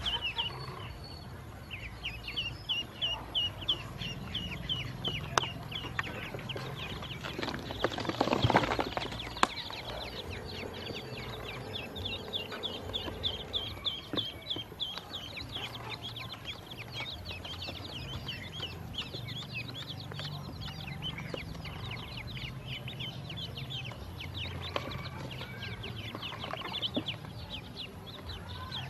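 A group of ducklings peeping continually, with rapid high-pitched chirps overlapping several times a second. A short rush of noise comes about eight seconds in.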